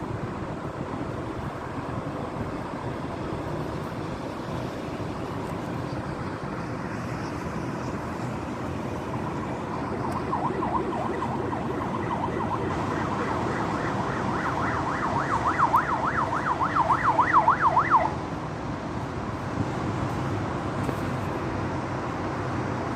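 Steady city traffic noise, with an emergency vehicle siren in a fast yelp coming in about ten seconds in, wavering up and down about three to four times a second and growing louder, then cutting off suddenly some eight seconds later.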